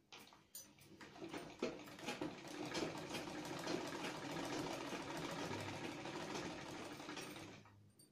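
Black domestic sewing machine stitching a seam through layered cotton fabric: the needle clatter builds up about a second in, runs steadily, then slows and stops shortly before the end.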